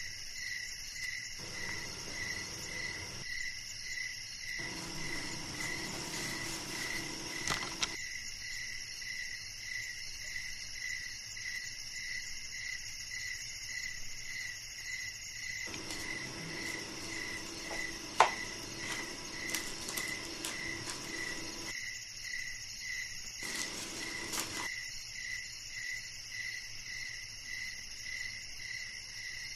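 Insects chirping steadily, one of them in an even pulse about twice a second. A single sharp click sounds about eighteen seconds in.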